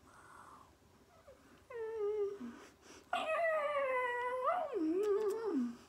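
A man's high, whining vocalization: a short wavering whine about two seconds in, then a louder long wail that slowly falls in pitch and wobbles lower before stopping near the end.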